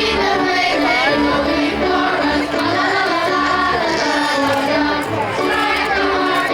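Music with singing: a sung melody over steady repeating bass notes.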